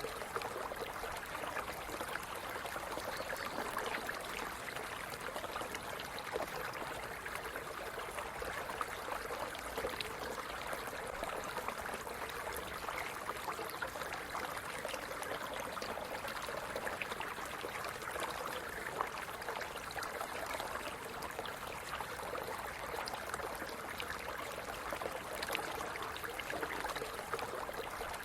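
Shallow stream running steadily, water trickling and gurgling over stones with fine splashes.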